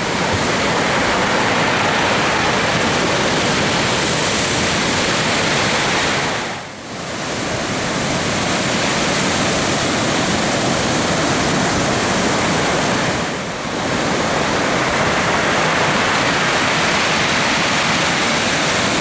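Large hurricane-swell surf breaking and washing ashore, a steady loud roar that dips briefly twice.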